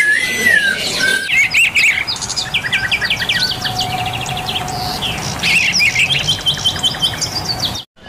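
Songbirds singing: about a second of slow whistled slurs, then dense strings of quick high chirps and trills from several birds, which break off just before the end.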